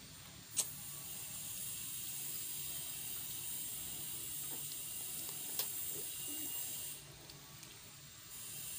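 Steady hiss of room noise, with a sharp click about half a second in and a fainter click a little past the middle.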